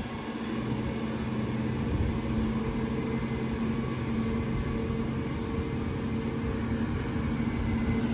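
Large truck's diesel engine running steadily under load as the truck climbs a steep hill slowly, a low even drone.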